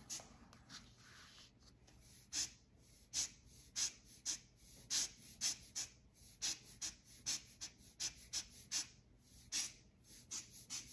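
Short puffs of air from a hand-squeezed air blower, pushing wet alcohol ink across the paper: about two puffs a second, uneven in strength.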